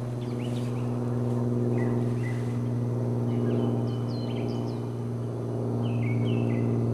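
A steady low hum with a few even overtones, with small birds chirping and whistling over it several times.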